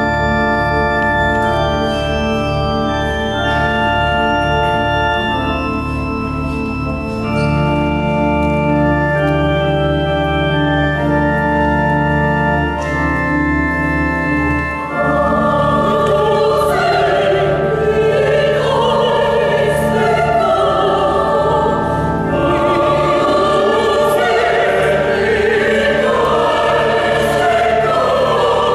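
Organ playing an introduction of slow, held chords, then a mixed choir comes in about halfway through and sings with the organ accompaniment.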